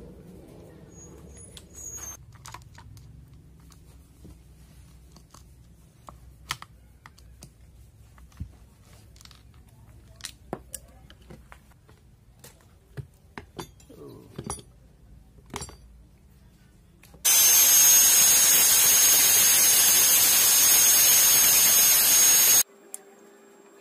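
Scattered light clicks and knocks of hand tools and metal parts as a two-stroke chainsaw is taken apart. About seventeen seconds in, an angle grinder runs loud for about five seconds with a steady high whine, its disc against the chainsaw's crankcase, then cuts off suddenly.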